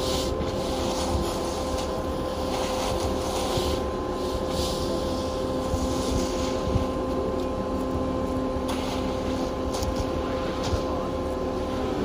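Concrete mixer truck running steadily, a constant engine hum with a steady whine, while rakes and a screed scrape through wet concrete now and then.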